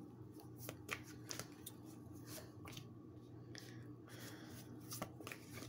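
A deck of oracle cards being shuffled by hand: faint, scattered soft ticks and rustles of the cards riffling against each other.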